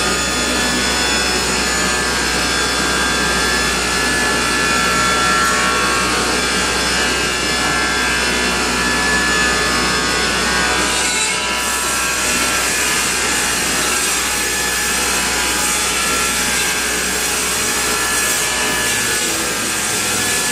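A sawmill saw on an industrial cutting line is cutting through a squared log. The sound is a steady, loud sawing noise with a whine of several held tones over it, and it changes slightly about halfway through.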